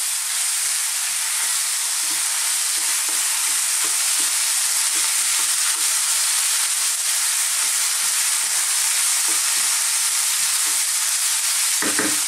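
Chicken strips and thin-cut carrots sizzling steadily in a wok over high heat, while a wooden spatula stirs and turns them with soft, irregular scrapes and knocks against the pan.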